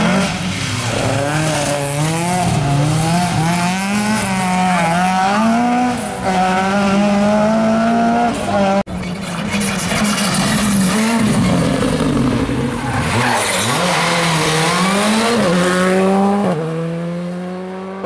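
Rally car engines revving hard at full throttle, the pitch climbing and dropping again and again with gear changes and lifts. The sound cuts off suddenly about nine seconds in and another rally car's engine takes over, its revs rising steadily near the end.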